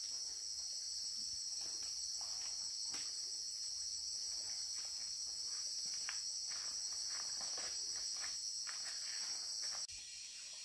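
Steady high-pitched drone of a forest insect chorus, with faint scattered ticks and crunches underneath. Near the end the drone dips briefly and changes in tone.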